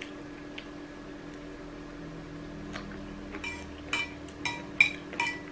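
Metal spoon clinking and scraping against a ceramic bowl during eating: a quick run of about seven clinks starting about three and a half seconds in, over a faint steady hum.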